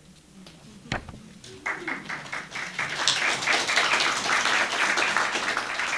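Audience applauding, starting just under two seconds in and swelling about a second later, after a single knock about a second in.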